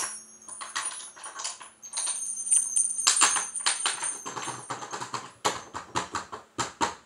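Small bells jingling and clattering in a run of sharp clicks, while a crystal singing bowl still hums on a low steady tone that fades out about four seconds in. Near the end the clicks come as separate strokes, a few each second.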